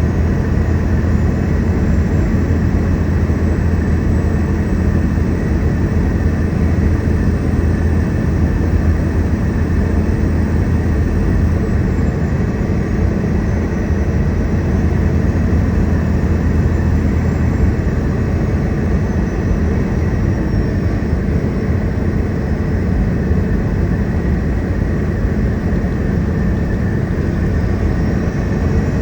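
Steady low engine rumble with a constant hum, unchanging in pitch or loudness.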